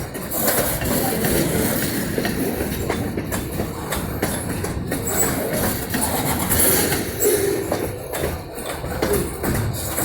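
Freight train rolling past, its cars' wheels clattering and rumbling on the rails in a steady, fairly loud noise with no horn.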